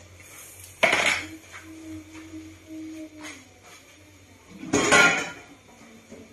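Kitchen clatter of a metal ladle against a stainless-steel soup pot: two loud, sharp bursts, one about a second in and one about five seconds in, with a faint steady low tone between them.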